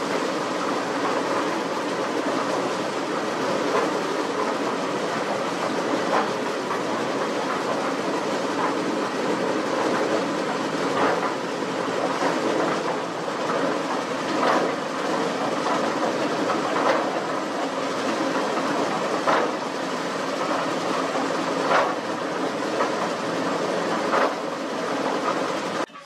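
Small diesel-engine cement mixer running, its drum turning with a steady mechanical clatter and a sharper knock every two to three seconds.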